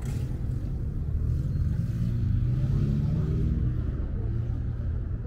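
Street traffic: a motor vehicle's engine running as it passes, loudest about two to three and a half seconds in, its low tone rising slightly in pitch.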